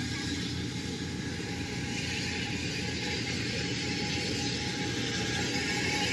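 Engines of a rice combine harvester and a grain-hauling tractor running steadily in the paddy, a continuous drone with a hissy top that grows gradually louder.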